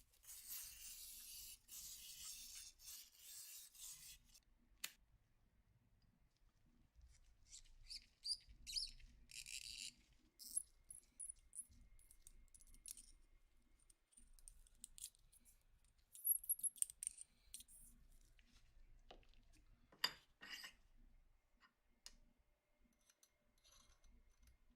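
Faint small-parts workshop sounds from a Colt M1911 pistol restoration: a hissing, brushing noise for about four seconds, then scattered small clicks, taps and scrapes of metal parts and tools, with a short cluster of knocks about twenty seconds in.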